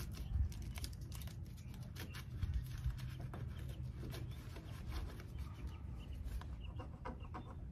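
Plastic fender flare being pressed and worked into place on the truck's fender: irregular small clicks, taps and knocks of plastic over a low rumble.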